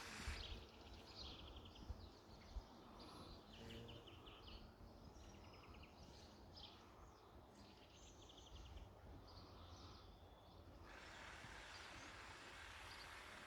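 Faint songbirds chirping and trilling in quick repeated notes over a low rumble of wind on the microphone; a few seconds before the end the birds give way to a steady hiss.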